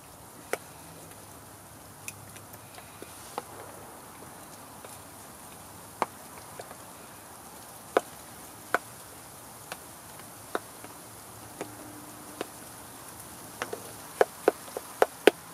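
Spoon mashing boiled potatoes in a stainless steel camp pot, knocking sharply against the metal sides at irregular intervals, then in a quicker run near the end, over a steady faint hiss.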